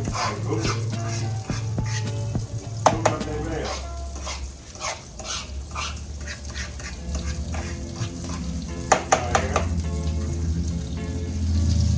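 Food sizzling in a frying pan while it is stirred and scraped with a utensil, in a run of quick strokes.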